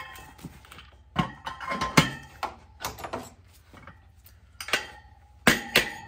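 Scattered knocks and clunks as a dirt bike wheel and tire are worked by hand, a few of them with a short ring. The knocks come about five times and are loudest near the end.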